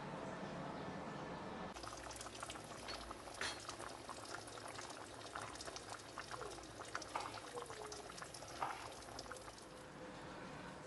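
Thick tomato and pepper sauce boiling in a stainless steel pot, with bubbles bursting in irregular pops from about two seconds in.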